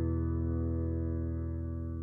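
Closing background music: a held final chord ringing out and slowly fading, its upper notes dying away first.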